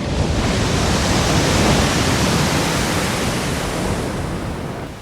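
Ocean surf roaring as a large wave breaks: a rushing noise that swells over the first couple of seconds and fades away near the end.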